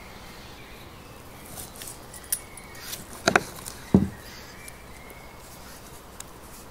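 A few short clicks and knocks of a knife and fork against a wooden cutting board as a steak is cut and a slice lifted. The loudest is a quick double click a little past the middle, then a duller knock just after.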